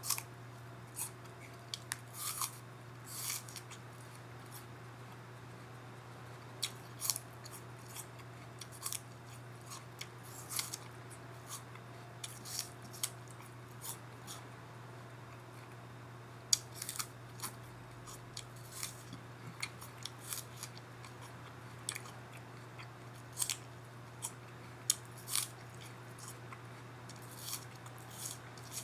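Apple being chewed, with irregular crisp crunches and clicks, over a steady low hum.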